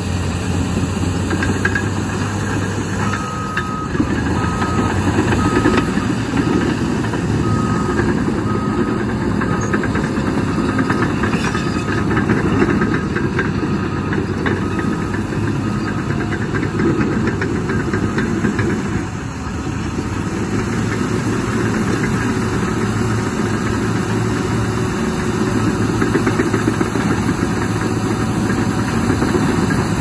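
Caterpillar D5R2 XL bulldozer diesel engines running steadily as the dozers work dirt. A reversing alarm beeps at an even pace from about three seconds in until about eighteen seconds in.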